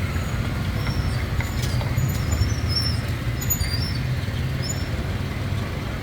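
Steady low rumble of street traffic, with short high chirps coming and going over it and a few faint clicks.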